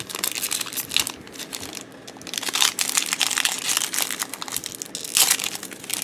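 Plastic wrapper of a trading-card pack being torn open and crinkled in the hands. It crackles in irregular bursts, loudest about two and a half seconds in and again near the end.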